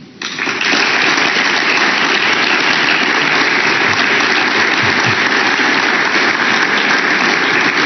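Audience applauding: the applause breaks out suddenly just after the start and holds steady and loud throughout.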